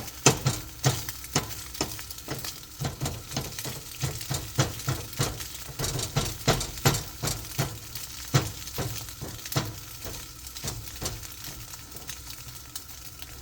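Eggs frying in oil, sizzling steadily, while a utensil chops them up in the pan with sharp knocks against the pan about twice a second. The knocks thin out near the end.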